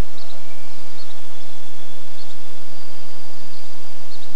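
Steady outdoor background hiss, with a few faint, short high-pitched chirps.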